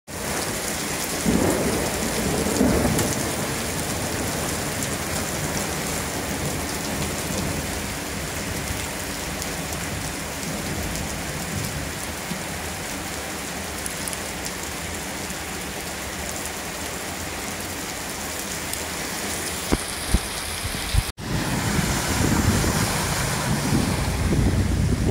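Heavy downpour falling on a paved street and parked cars as a dense, steady hiss, with a couple of low rumbles in the first few seconds. After an abrupt cut about 21 seconds in, floodwater rushes across the road, with wind buffeting the microphone.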